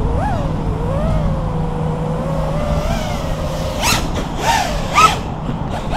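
FPV quadcopter's electric motors and propellers whining, the pitch rising and falling with the throttle over a low rumble. Two sharp throttle punches near the end send the whine briefly sweeping up in pitch as the quad flips.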